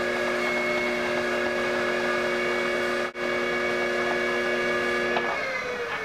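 Electric potter's wheel motor whining steadily at speed as clay is worked on the wheel head. The sound cuts out for an instant about halfway, and about five seconds in the pitch falls as the wheel slows down.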